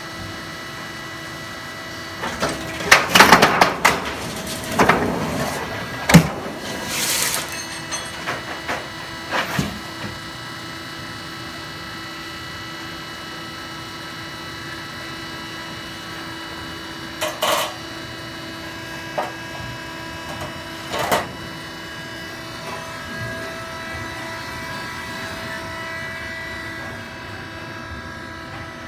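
Roll-forming machine for corrugated metal roofing sheets running with a steady hum of several held tones. Loud bursts of metal clattering and banging come a few seconds in, then twice more around the middle.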